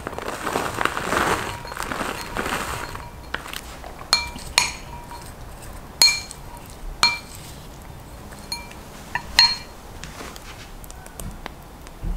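Shredded mozzarella and sweet corn rustling in a glass bowl for the first few seconds, then a spoon stirring the mix and knocking against the glass bowl about five times, each clink ringing briefly.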